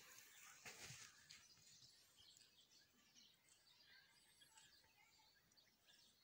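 Near silence outdoors, with a few faint high bird chirps and soft rustling in the first second.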